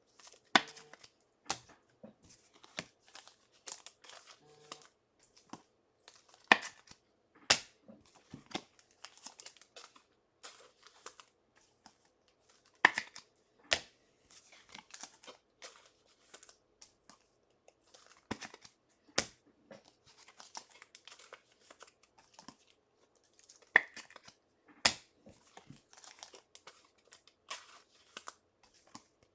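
Trading card pack wrappers being torn open and crinkled by hand, with cards slid and handled: irregular crackles and a few sharp snaps.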